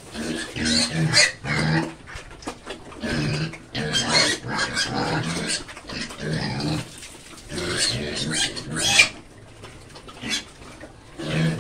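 Young pigs grunting and squealing as they crowd a trough and eat, in loud irregular bursts every second or so.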